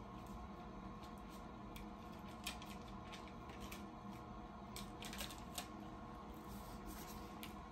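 Clamshell heat press closed on a T-shirt during a timed press: a faint steady hum with a light held tone, and a handful of scattered soft ticks and clicks.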